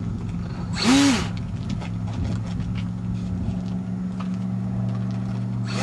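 A model plane's motor and propeller briefly revved up and back down about a second in, with a steady low hum and scattered light clicks around it.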